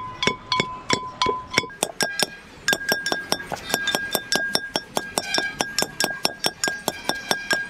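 Rapid, even clinking of a utensil striking a ringing vessel, as when fruit bhorta is mixed. The strikes come about three a second, then faster after about two seconds, when the ring under them jumps to a higher pitch.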